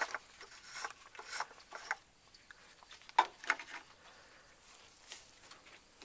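Scattered clicks, rubs and light knocks of hands-on work around a truck engine, with one sharper knock about three seconds in, then fainter handling.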